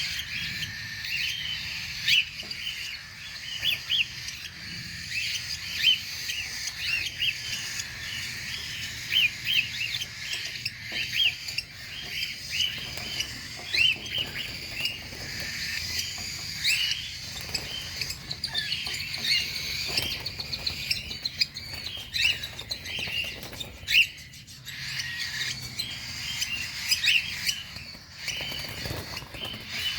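A room of cockatiels chirping and calling, many short chirps overlapping in a steady chatter, with a few sharp clicks among them.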